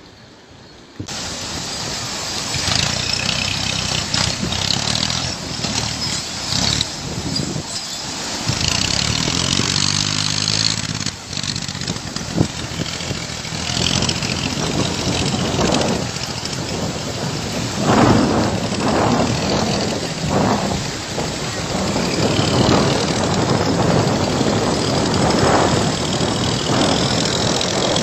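A vehicle engine running under noisy conditions. It comes in about a second in, holds a steady pitched engine note for a few seconds in the middle, and surges in loudness several times later on.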